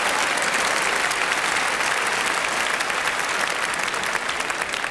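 Theatre audience applauding, a dense, steady clapping that eases off slightly near the end.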